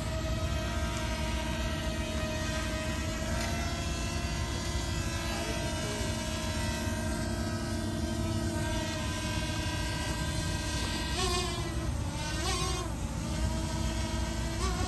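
Bwine F7GB2 quadcopter drone's propellers whining steadily as it flies, with a low rumble underneath.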